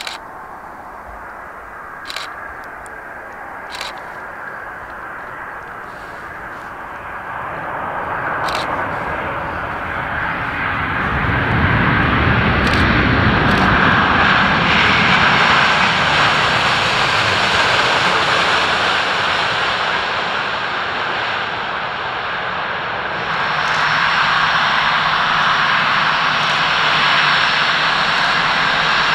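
Boeing 787-9 jet engines on landing. It starts quieter, with a few sharp clicks in the first few seconds; the engine roar then swells over several seconds as the airliner rolls out on the runway and stays loud. Near the end it changes to a steadier jet whine with a low hum.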